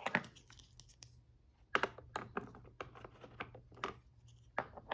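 Plastic latches and doors on a VTech Latches & Doors Busy Board being worked by hand: a string of irregular clicks and knocks, with a louder cluster about two seconds in.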